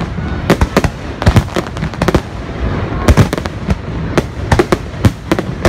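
Aerial fireworks bursting in quick, irregular succession: sharp bangs several times a second over a steady low rumble.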